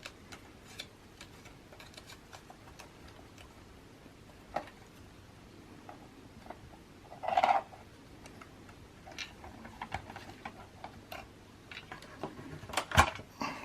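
Hard plastic action-figure parts clicking and tapping as they are handled and fitted together: scattered light clicks, a louder brief rustle about seven seconds in, and a cluster of sharper clicks near the end.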